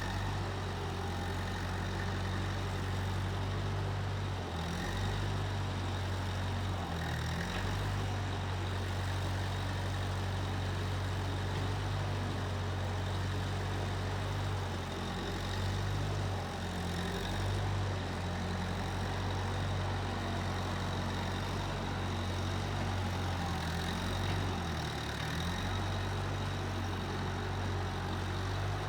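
Engine of a Case 1530 Uni-Loader skid steer running at a steady speed, its low hum wavering briefly in pitch a few times.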